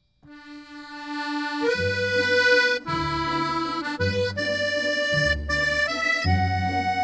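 Instrumental background music that starts just after a moment of silence: a single held note, then a bass line joins and the melody moves on in held notes.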